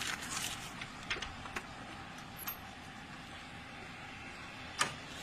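Steady roadside background noise, with a few light clicks and one sharper click near the end.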